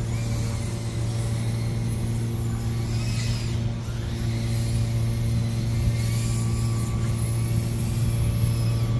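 Small brushless FPV whoop quadcopter flying, its motors whining higher and lower as the throttle changes, over a steady low hum.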